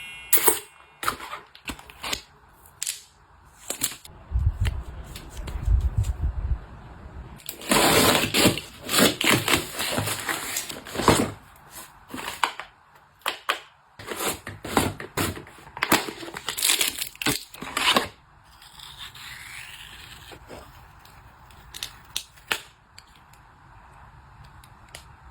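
Packaging and household items being handled up close: crinkling and tearing, with a string of sharp clicks and taps.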